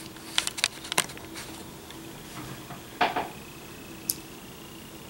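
Handling noise from a camera being adjusted to zoom in: several light clicks and taps in the first second, a louder knock about three seconds in, and a short high click a second after that.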